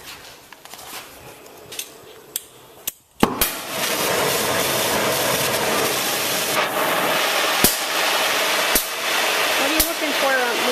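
Oxy-fuel cutting torch being lit: about three seconds in it lights with a sharp pop, then burns with a steady loud hiss, with a few sharp clicks over it.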